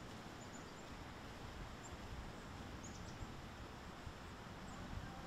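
Faint woodland ambience: a steady background hiss with a few brief, faint high chirps from small birds.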